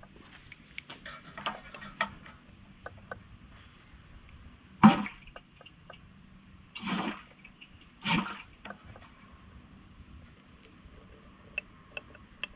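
Gasoline gurgling and splashing out of a small engine's fuel shutoff into a jar in three short gushes in the middle, as a pick works rust debris out of the clogged outlet, with light metal clicks of the pick in the valve. The clog comes from rust sediment at the bottom of the fuel tank.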